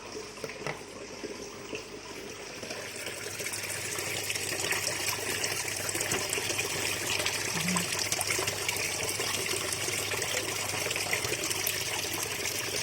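Water running and splashing, growing louder about three seconds in and then holding steady.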